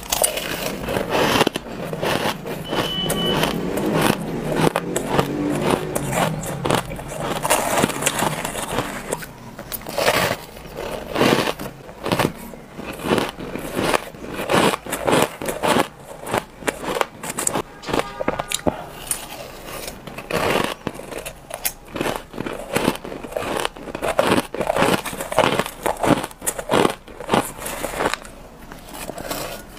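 Ice being bitten and chewed close to the microphone, a dense run of crisp crunches one after another.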